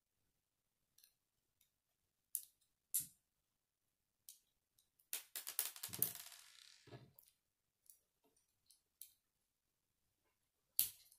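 Plastic Lego bricks being handled and snapped together: scattered sharp clicks, a busier run of clicking and rattling around the middle, and a loud snap near the end.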